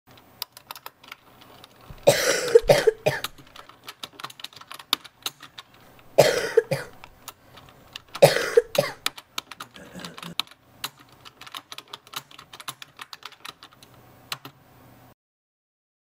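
Typing on a computer keyboard, a quick run of key clicks, broken three times by a person's harsh coughs. The sound cuts off suddenly near the end.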